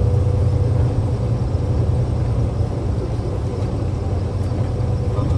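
Steady low rumble of a car driving along a road: tyre and engine noise.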